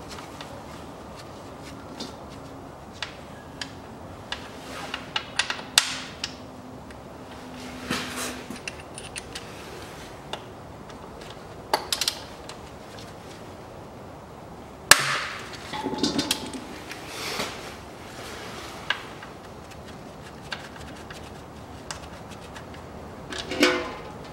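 Scattered metallic clicks and knocks of a hex key working loose the drain plug of a CVT transmission pan, with one sharp click about two-thirds through and short clatters after it and near the end.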